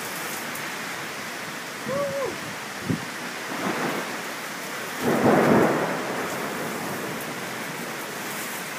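Heavy thunderstorm rain pouring steadily, with a rumble of thunder about five seconds in that is the loudest moment.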